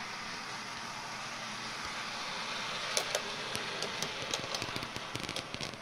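Model Class 108 diesel multiple unit running along the track under DCC control, a steady motor whirr and wheel noise growing louder as it comes closer. From about halfway there is a run of sharp, irregular clicks from the wheels on the track.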